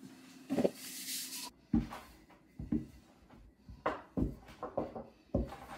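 Flour dusted by hand onto a wooden board, a short hiss, then a wooden muddler rolling out pie dough on the board, with rubbing and a series of dull wooden knocks.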